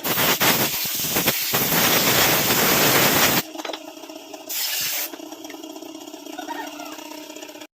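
Loud spraying hiss in two bursts: a long one of about three and a half seconds, then a short one of about half a second about a second later.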